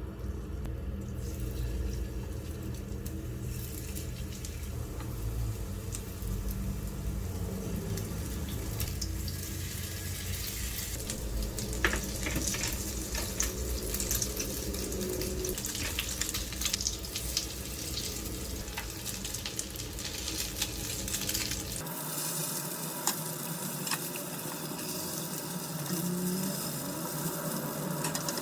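Home kitchen cooking sounds: a steady hiss with scattered clicks and taps of utensils. The sound changes abruptly about 22 seconds in, where a low rumble underneath drops away.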